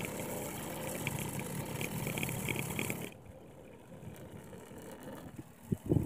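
Honda Dio AF27 scooter's 50 cc two-stroke single-cylinder engine idling, heard close to the exhaust tailpipe. About three seconds in it becomes clearly quieter.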